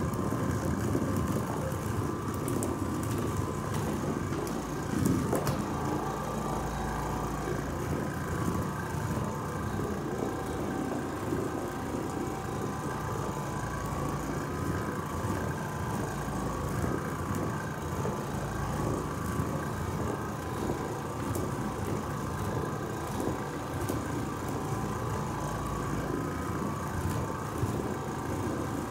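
Oreck Orbiter orbital floor machine running steadily, its pad scrubbing carpeted stair treads with a constant motor hum. There is a brief louder knock about five seconds in.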